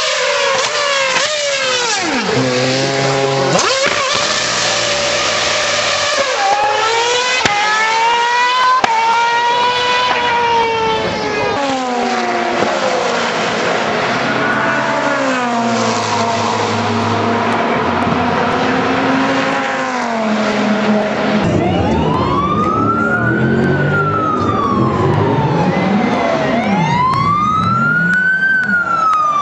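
High-revving supercar engine accelerating hard, its pitch climbing and dropping sharply with each gear change. Near the end come two long, smooth rises and falls in pitch.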